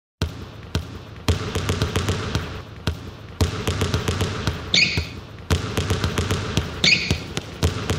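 A basketball being dribbled in a steady rhythm, used as the beat of a pop song's intro, with a short squeak about every two seconds like sneakers on a court.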